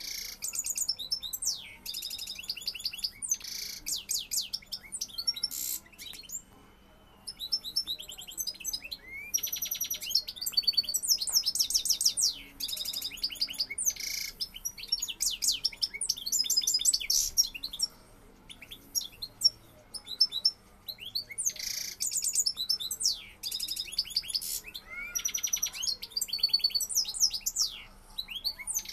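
Male European goldfinch singing its fast, twittering song of rapid chips, trills and buzzy notes in long bouts with a few short pauses: courtship song directed at a caged hen.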